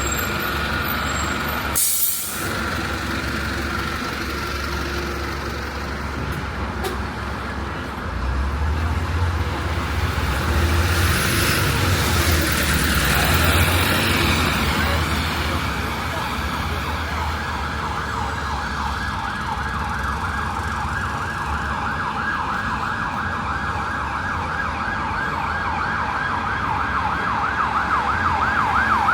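Street traffic with a vehicle rumbling past near the middle; then an emergency vehicle's siren sounding a fast warble, growing louder toward the end as it approaches.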